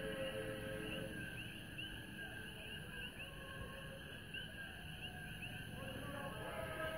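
Common coqui frogs calling, a chorus of short rising chirps repeating about twice a second. A distant choir's held notes fade out about a second in and come back near the end.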